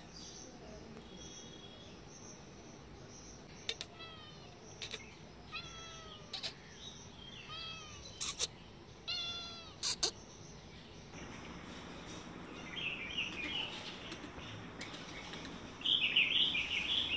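A cat meowing about six times, short meows that fall in pitch at the end, with a few sharp clicks among them. Later come bursts of high chirping.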